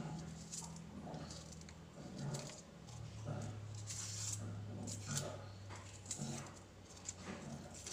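Small knife scrapes and clicks as a red onion is peeled by hand with a paring knife, over a low steady hum that drops in pitch about three seconds in.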